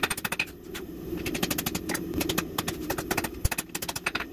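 Hand hammer striking red-hot steel on an anvil in quick runs of blows with short pauses: forging the jaw of a box jaw tong.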